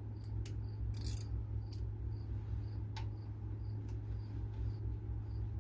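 Metal hand tools clinking: a few sharp, separate clicks in the first three seconds as a socket and short extension are fitted. Under them a steady low hum and a faint high chirp repeating about twice a second.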